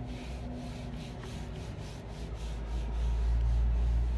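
Whiteboard eraser scrubbing back and forth across a whiteboard in quick strokes, about four or five a second, with a low rumble rising near the end.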